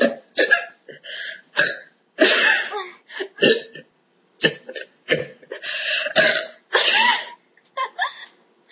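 A woman burping over and over: a string of short, irregular burps and hiccup-like gulps, a few of them drawn out longer.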